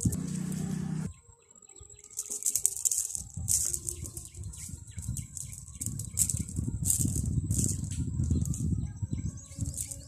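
Cast net being gathered and handled: nylon mesh rustling and the lead sinkers along its edge rattling, in repeated short bursts.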